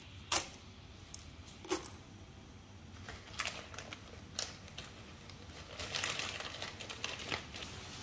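Dry spaghetti strands clicking and crackling as handfuls are dropped into a pot of boiling water: a few separate sharp clicks, then a denser crackly run about six seconds in.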